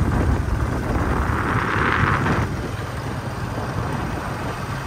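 Wind buffeting the microphone of a camera travelling along a road, a steady rushing noise heavy in the low end. A brief louder hiss swells about two seconds in.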